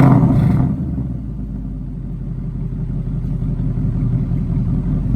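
Roush-supercharged 5.0 L V8 of a 2020 Ford Mustang GT, through an X-pipe exhaust with active valves, coming down off a rev in the first second and settling to a low rumbling idle that grows slightly louder near the end.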